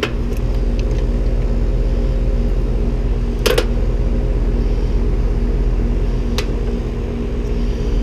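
Air-conditioning outdoor condensing unit running, its compressor and condenser fan humming steadily, with a few brief clicks from handling. The compressor is running again after tripping on thermal overload, a trip the technician puts down to a failed hard-start kit.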